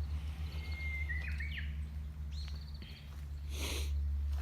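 Small birds chirping in short, thin whistled calls over a steady low rumble, with a brief rustling burst about three and a half seconds in.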